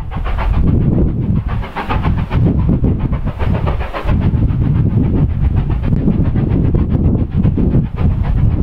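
Strong wind buffeting the microphone, over a steam locomotive working a train in the distance with its exhaust chuffing.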